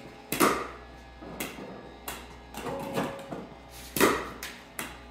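Pickleballs knocking: balls bouncing on a concrete floor and struck low with a paddle as half volleys, several sharp knocks spaced a fraction of a second to a second apart, the loudest about four seconds in. A short steady hum sounds briefly near the middle.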